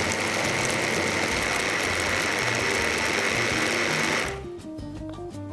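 Kenwood hand blender with its mini chopper bowl running steadily with a high whine, blending a liquid marinade of garlic, spices, oil and vinegar; the motor cuts off about four seconds in. Background music plays underneath.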